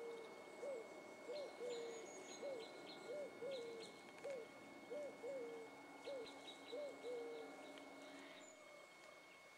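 A chicken clucking softly: a run of about a dozen short, low clucks every half second or so, some drawn out into a longer note, stopping about three quarters of the way through. Faint high chirps sound above them.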